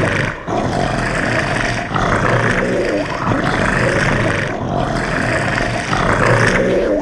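Kaiju movie monster roar sound effects: a run of three long, harsh roars one after another, each rising and then falling in pitch.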